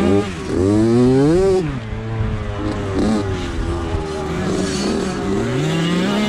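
Motocross bike engine heard up close from on board, revving up through the first second and a half, then the throttle shut off and the engine running low for a few seconds before the revs climb again near the end.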